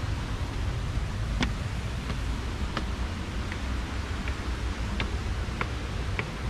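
Wind buffeting the microphone with a steady low rumble, and light sharp clicks about every two-thirds of a second from footsteps on a stone path.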